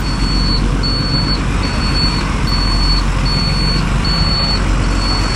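Motorcycle engine and road noise while riding, with a high electronic beep repeating about every 0.8 s throughout.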